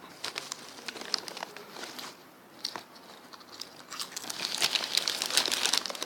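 Crisp packet crinkling and rustling in the hands, in scattered crackles at first and dense crinkling over the last two seconds.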